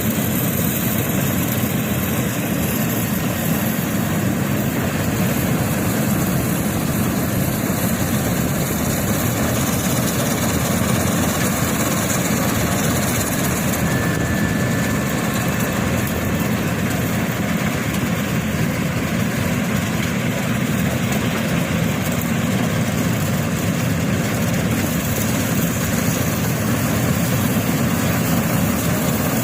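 Combine harvester running steadily, a constant loud engine and machinery noise heaviest in the low end.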